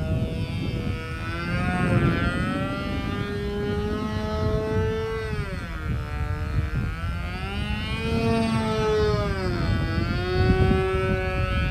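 Model airplane's Evolution .36 two-stroke glow engine swinging an 11x4 propeller, buzzing as the plane flies overhead. Its pitch sweeps down and back up several times, over a low steady rumble.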